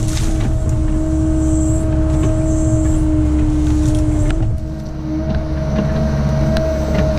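Cat 306 mini excavator's diesel engine running steadily under load, with a steady whine over the rumble and a few sharp cracks and clacks as brush is grabbed in the grapple. The engine eases off briefly a little past halfway, then picks back up.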